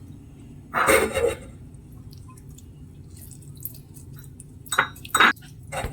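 Liquid poured into a glass about a second in, then a few short clinks of glass near the end.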